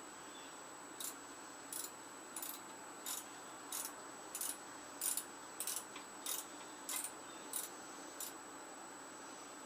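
A ratchet wrench clicking in about a dozen short, evenly spaced strokes, roughly one every two-thirds of a second, working fasteners on a small Tecumseh mower engine being torn down.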